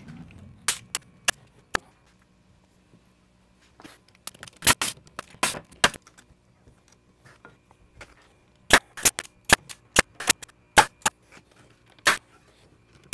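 Pneumatic nail gun firing nails into wooden boards: sharp single shots that come in quick clusters of several.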